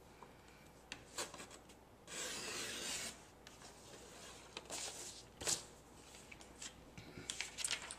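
Sliding-blade paper trimmer cutting a sheet of printer paper: a rasping scrape about a second long as the cutting head is drawn along the rail through the paper, with sharp clicks and paper rustling around it.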